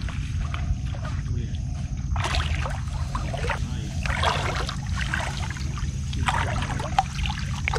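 Shallow water splashing in several irregular bursts from about two seconds in, as a large barramundi is held and moved in the shallows, over a steady low rumble.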